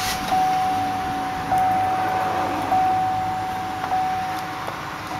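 2007–2013 Chevrolet Avalanche warning chime: one clear ding repeating about four times, roughly every second and a bit, each fading before the next, over a steady hiss.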